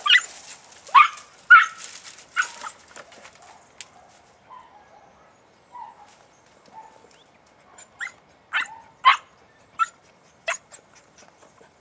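Young podenco puppy giving short, high-pitched yelping barks: a handful in the first couple of seconds, then another run of about five near the end.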